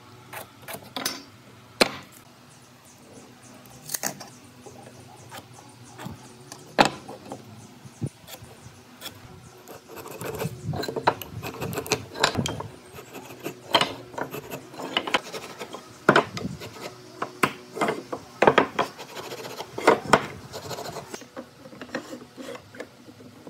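Hand marking-out on hardwood blanks at a wooden workbench: scattered sharp clicks and knocks of a steel ruler, pen and blocks being handled, then, from about ten seconds in, busier scraping and rubbing as a wooden marking gauge is drawn along the board, with frequent knocks.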